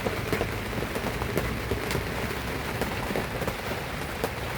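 Heavy tropical rain falling on a sailboat's cockpit and bimini canvas: a steady hiss dotted with many separate drops hitting close by.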